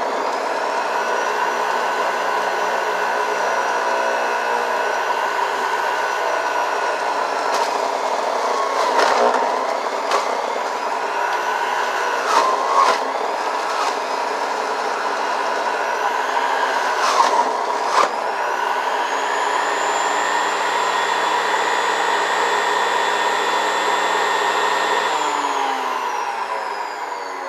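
Makoloce centrifugal juicer's motor running on its lowest speed with a steady whir. Its pitch dips briefly a few times as orange pieces are pressed down the chute, with a few knocks from the pusher. Near the end the motor is switched off and winds down.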